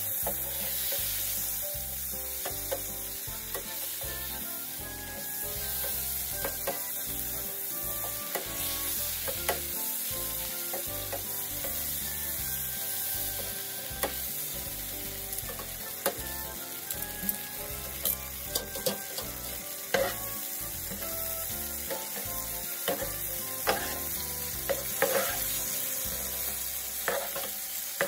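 A steak sizzling steadily as it fries in foaming fat in a pan. Metal tongs and a spoon clink against the pan in many short clicks, more often in the second half.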